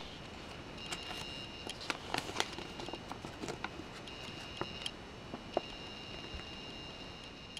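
A thin paper instruction leaflet being unfolded and handled, crinkling and crackling in many small irregular clicks. A high steady whine comes and goes behind it.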